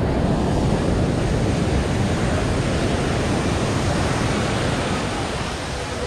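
Steady rush of ocean surf breaking on the beach, mixed with wind on the microphone.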